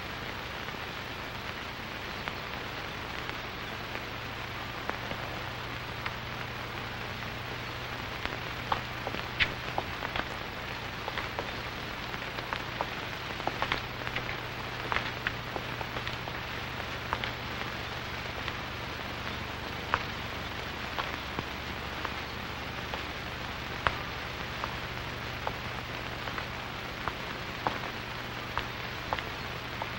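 Steady hiss with a low hum and scattered irregular crackles and pops: the noise of an old film soundtrack, with no speech or music.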